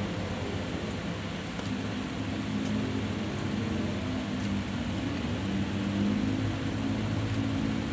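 Steady low hum over a background hiss, with a few faint ticks.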